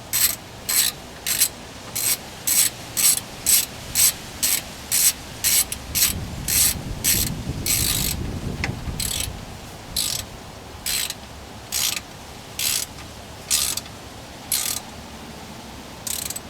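Ratchet wrench clicking in short strokes, about two a second, as the rear differential cover bolts are run down until just snug. The strokes come more slowly and with pauses in the second half.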